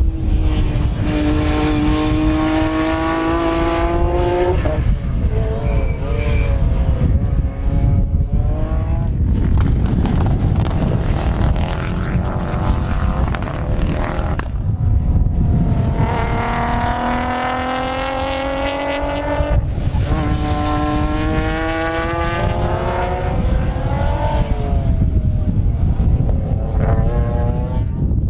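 Rally/circuit cars accelerating hard along the track, the engine note climbing through the revs and dropping at each gear change, with two main passes. Heavy wind rumble on the microphone underneath throughout.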